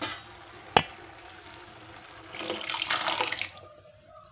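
Boiled dal poured from a vessel into a hot kadhai of fried masala: a watery pour and splash over a low sizzle, louder for about a second near the middle. A sharp metal clink comes just under a second in.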